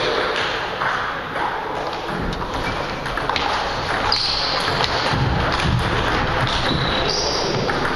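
Table tennis hall: a few sharp clicks of a ping-pong ball bouncing, over a steady noisy background.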